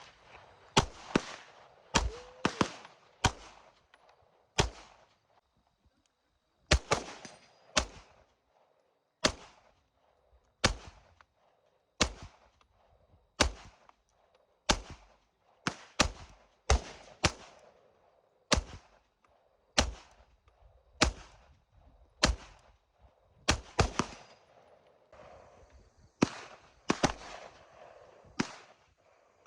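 Girsan MC semi-automatic pistol being fired one shot at a time at an uneven pace, about thirty shots, each with a short echo. There is a pause of about two seconds a few seconds in.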